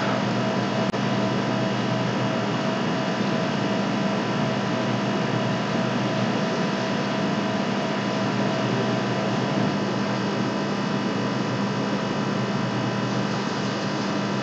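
Steady background hum and hiss of room noise, with a few faint constant tones and no change throughout.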